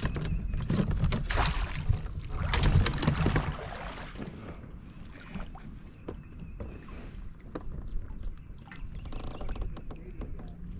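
Knocks, clicks and water noise from a fishing kayak on the water, with a low wind rumble on the microphone over the first few seconds, then quieter scattered knocks.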